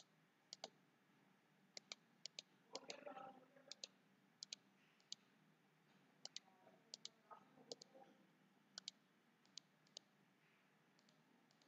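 Faint computer mouse clicks, single clicks and quick double clicks every half second to a second or so, as on-screen pen ink is wiped from a slide with the eraser tool.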